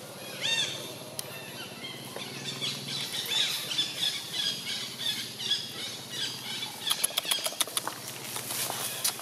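Birds chirping and calling in woodland, with one short squealing call about half a second in. A quick run of sharp clicks comes near the end.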